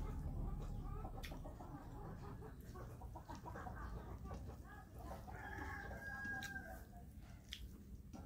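Domestic chickens clucking, with one longer drawn-out call about five seconds in, mixed with a few light clicks.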